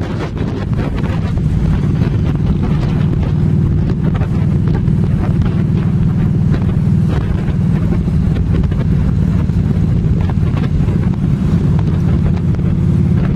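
Trike engine running steadily at road speed, with wind buffeting the microphone on the pillion seat; it gets a little louder about a second in.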